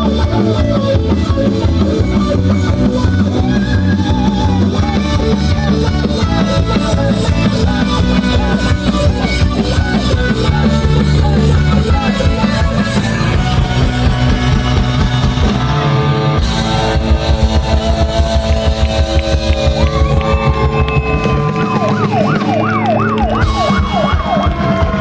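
Live band playing an instrumental passage with guitar, bass and drums. Near the end, a rapid up-and-down siren-like wail comes in over the music.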